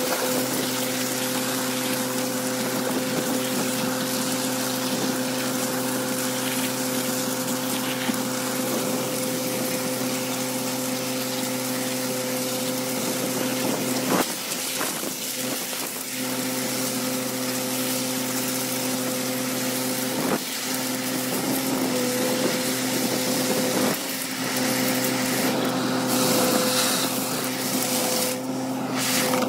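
Vacuum excavation: a steady pitched drone from the suction and pump machinery over the hiss and rush of a high-pressure water jet washing soil loose and slurry being sucked up a large hose. The drone briefly drops out about 14 seconds in and again around 20 seconds.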